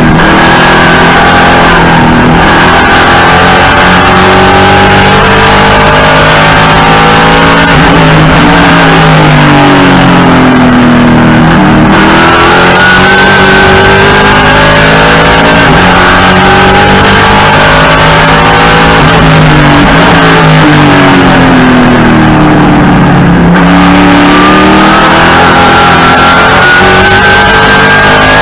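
Race car engine heard from inside the cockpit at racing speed, loud throughout. The revs climb under acceleration and fall back in long sweeps several times as the car slows for corners, over steady wind and road noise.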